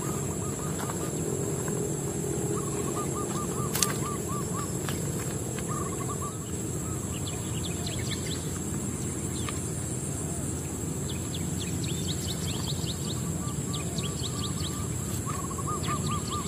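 Birds calling: runs of quick, evenly repeated chirps, with faster high, upward-flicking notes in between, over steady outdoor background noise and a thin steady high tone. One sharp click sounds about four seconds in.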